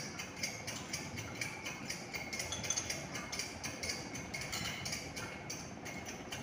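Tractor engine running steadily while ploughing a rice paddy, with a regular clatter of about four ticks a second.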